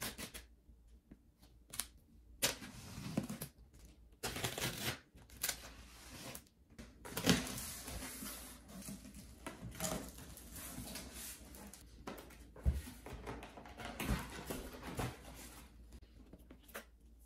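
Cardboard box being unpacked: a knife slitting packing tape, tape tearing, and cardboard flaps and packing material rustling and knocking in irregular scraping bursts.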